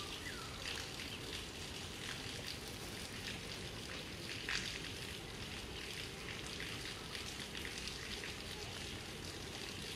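Steady outdoor background noise with scattered light ticks like raindrops or drips falling on leaves and stone. A brief falling squeak comes just after the start.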